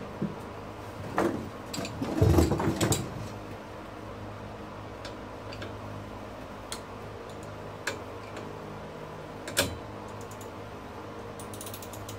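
Metal hand tools clinking and knocking as a socket and ratchet are handled on a steering wheel's center nut, with a loud clatter about two seconds in, scattered single clicks, and a quick run of light ticks near the end, over a steady low hum.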